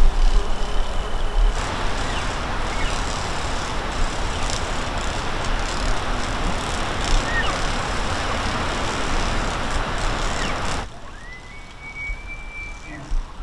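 A steady rush of wind noise on the microphone, with a low rumble, that drops away sharply near the end. A distant bull elk bugles then: a thin, high whistle that rises and is held for under two seconds. A shorter high whistle comes right at the start.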